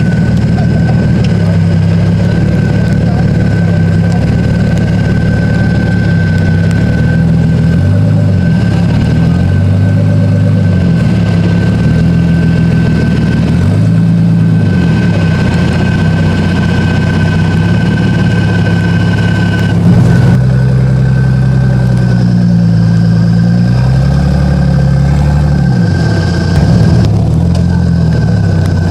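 Jeep Cherokee's engine revving up and down again and again under heavy load as the off-roader climbs a steep muddy slope, with a steady high whine alongside.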